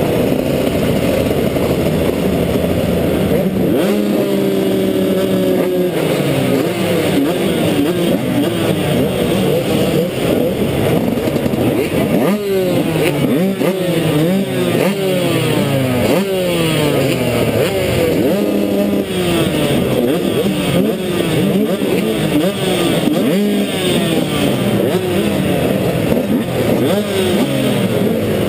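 A row of motocross bikes revving their engines at the start gate while waiting for it to drop, many engine notes rising and falling over one another.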